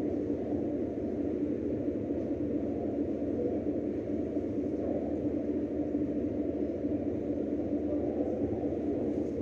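Steady low drone of a ferry's engines and machinery heard on board, with a constant hum over an even rumble.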